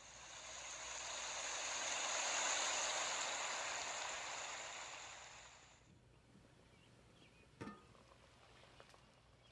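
Water pouring steadily for about six seconds, swelling and then fading away, followed by a single light knock near the end.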